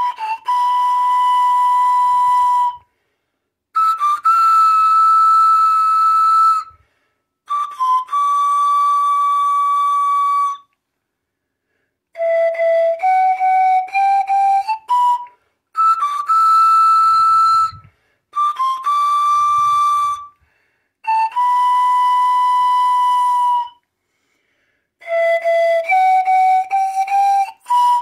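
Pan flute played solo: slow phrases of long, breathy held notes separated by short pauses, two of them stepping up through a run of shorter notes.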